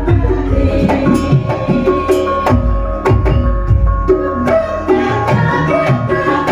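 Javanese gamelan ensemble (karawitan) playing a gending: metallophones strike quick, ringing pitched notes over deep hand-drum strokes.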